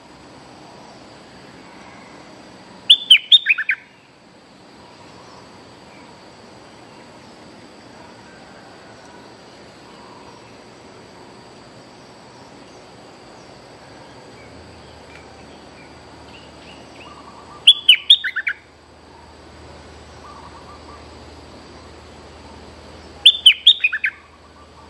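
A bulbul's short, loud song phrase, a quick tumble of notes falling in pitch, given three times: about three seconds in, again some fifteen seconds later, and once more near the end. A faint, steady high insect drone runs underneath.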